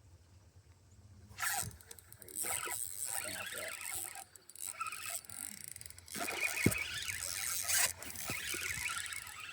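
Fishing reel ratcheting in irregular bursts, its handle cranked and its drag slipping as a hooked bass pulls on the line.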